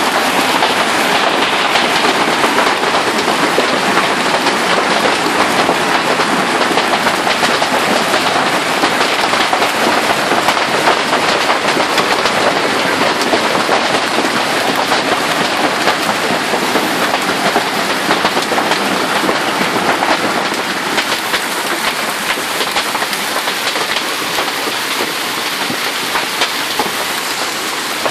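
Heavy hail mixed with rain falling and hitting the ground and everything around: a dense, steady clatter of countless small impacts that eases slightly about two-thirds of the way through.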